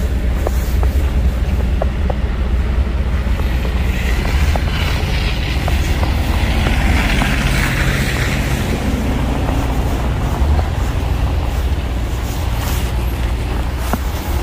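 Road traffic on a snowy street: a steady low rumble, with a passing vehicle's tyre hiss swelling and fading between about four and nine seconds in.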